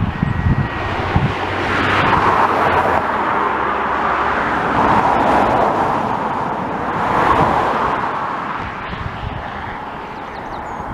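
Road traffic passing on the road over the bridge: tyre and engine noise of a few cars swelling and fading one after another. A few low knocks come in the first second.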